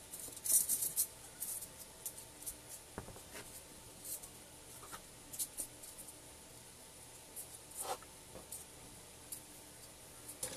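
Small pieces of polystyrene foam being handled, broken and pressed onto a painted box, making faint, irregular scratching and scraping with scattered light ticks.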